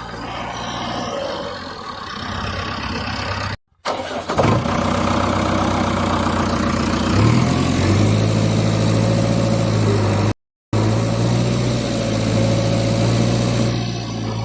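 Motor vehicle engine running, with two abrupt cuts to silence. Just after the first cut an engine starts up, and about seven seconds in its pitch steps up as it revs, then it holds steady.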